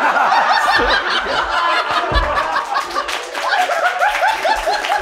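Several men laughing hard together, voices overlapping, with a run of rapid 'ha-ha-ha' pulses in the second half.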